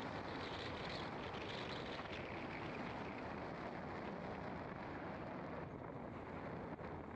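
Car driving on an asphalt road: steady tyre and wind noise with no distinct engine note. The hiss softens a little near the end.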